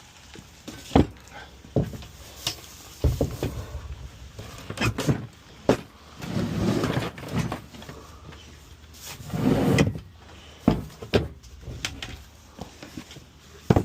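Irregular knocks and clunks of hard objects being picked up and set down, with two longer rummaging scrapes partway through.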